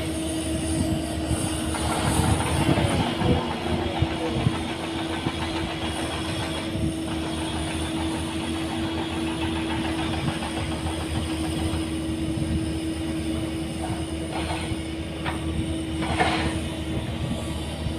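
Heavy diesel earthmoving machinery (dump truck and excavator) running steadily: a constant engine hum over a low rumble. A few short knocks come near the end.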